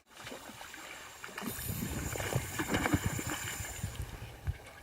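Shallow water splashing and sloshing, busiest from about a second and a half to four seconds in, as a hooked silver salmon is brought in close to the shore.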